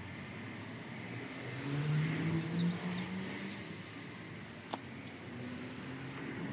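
A low engine hum that swells for a second or two about two seconds in, with a brief bird chirp at the same time and a single sharp click near the end.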